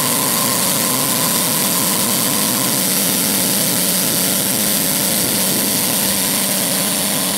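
Live-steam scale locomotive's boiler letting off steam: a loud, steady hiss that holds unchanged.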